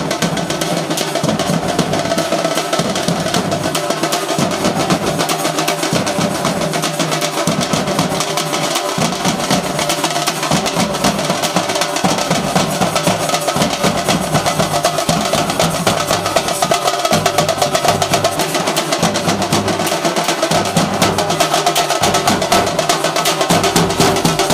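Music led by fast, dense drumming, steady with no breaks.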